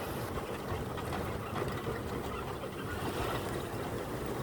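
A car driving along, its engine running steadily under road noise.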